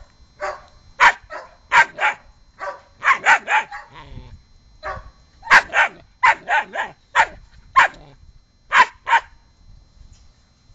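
A German shepherd-type puppy play-barking at a cat: a run of short, high barks, often two or three in quick succession, that stops about nine seconds in.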